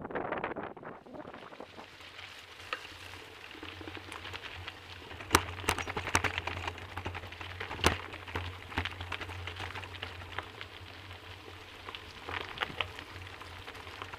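Bicycle rolling over a rough gravel track: tyres crunching, with scattered sharp clicks and rattles over a steady low rumble.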